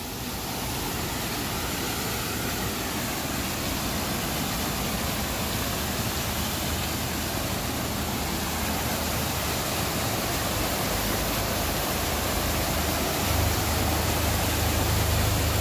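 Tangle Falls' waterfall and cascading creek rushing as a steady hiss that grows gradually louder as it is approached. A low rumble joins in about three seconds before the end.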